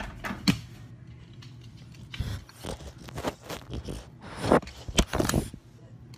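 Irregular scrapes and several sharp knocks of a phone being bumped and shoved about on the floor by a dog nosing at it.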